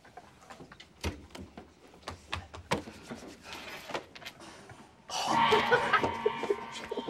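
Soft scattered clicks and taps of playing cards handled on a wooden table. About five seconds in, a sudden loud sound-effect sting with steady held tones begins.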